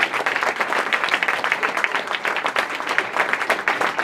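Audience applauding, many hands clapping steadily at the end of a reading.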